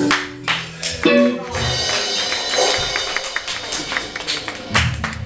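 Rock band of electric guitar, bass and drums playing in short broken-up bursts of low notes, strums and sharp hits.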